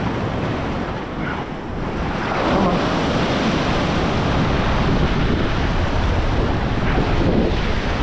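Ocean swell washing and breaking against a rock ledge, with wind gusting on the microphone; the surf swells louder about two seconds in.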